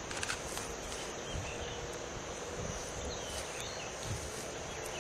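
A steady high-pitched drone of insects, with faint short bird chirps now and then and a few soft clicks at the start.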